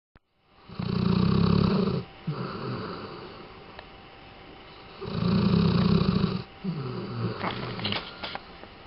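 Labrador retriever snoring in its sleep: two loud snores about four seconds apart, each followed by a softer, longer breath.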